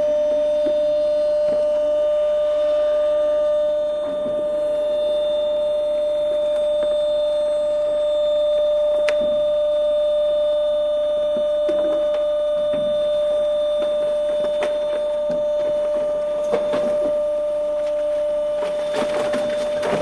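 Trash compactor pressing cardboard and paper: a steady motor whine with scattered creaks and clicks, and the crackle of crushed cardboard picking up near the end.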